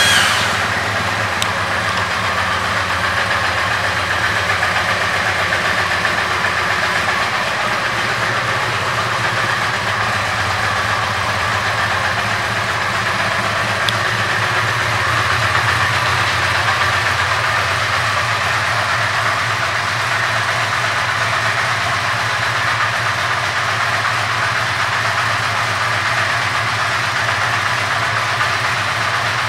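1985 Honda Sabre 700's V4 engine idling steadily, just after starting up.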